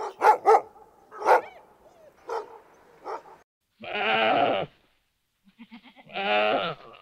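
A Shiba Inu gives five short, sharp barks over the first three seconds. Then come two long, wavering bleats from deer, about two seconds apart.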